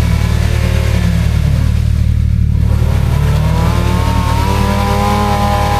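Four-wheel drive's engine revving hard as it drives through a deep mud hole. The engine note drops briefly about two seconds in, then climbs and holds high toward the end.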